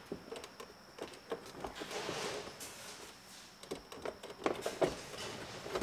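Plastic center console and trim being worked into place: a scatter of light knocks and clicks, with a short rustle about two seconds in.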